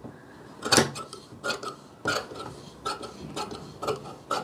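Tailor's scissors cutting through kurta cloth: a series of crisp snips, roughly one every half second.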